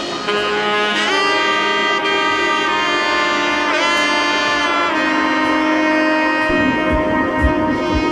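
Background music with a saxophone-like horn melody: held notes with slides between them, and a low beat coming in about two-thirds of the way through.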